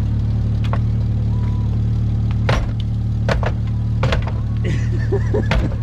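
Jeep Cherokee XJ engine idling steadily, with several sharp clacks spread out, about one every second, from a jack being worked under the bumper.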